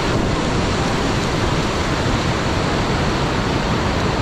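Fast-flowing floodwater rushing, a loud, steady noise with no breaks.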